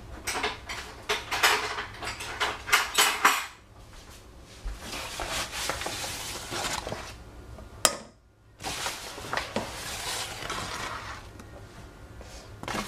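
A wire whisk and metal utensils clinking and scraping against a stainless steel saucepan, with a quick run of sharp clicks over the first three seconds or so. Then softer scraping and rustling follows, broken briefly near the middle.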